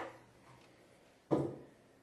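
A single short knock a little over a second in, against quiet room tone.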